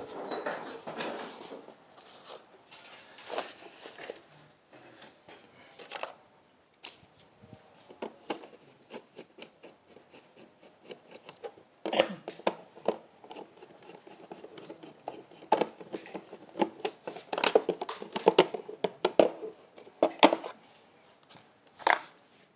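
Irregular clicks, knocks and rustling from tools and parts being handled, sparse at first and coming in a denser run of taps from about twelve seconds in.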